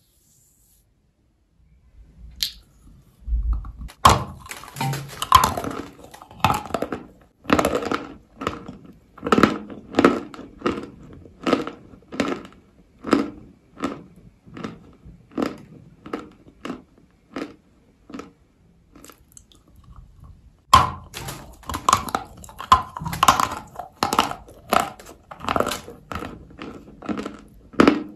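A lump of Turkestan clay being bitten and chewed: a crunchy bite about four seconds in, then steady crunchy chewing at roughly one and a half chews a second. A second bite about twenty-one seconds in starts another run of chewing.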